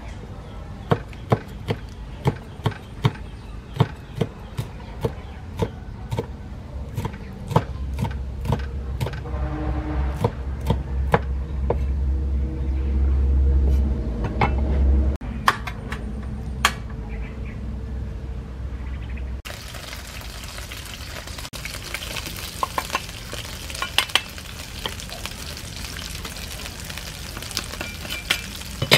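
Large kitchen knife chopping red chili peppers on a thick wooden chopping block, sharp knocks about twice a second, over a low rumble that swells in the middle. About two-thirds of the way through it gives way to eel pieces and minced garlic sizzling and crackling in hot oil in a frying pan.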